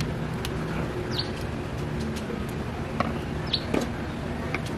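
Light clicks and taps from a plastic bottle as liquid color bleach is poured into a washing machine's detergent drawer, over a steady low background hum. Two short high chirps come about a second in and about three and a half seconds in.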